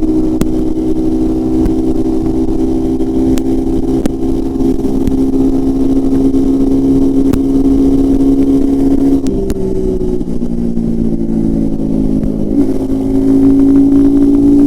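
Royal Enfield Himalayan 450's single-cylinder engine and exhaust running under way. The note holds steady, drops in pitch about nine seconds in, then climbs back up and gets louder about three seconds later.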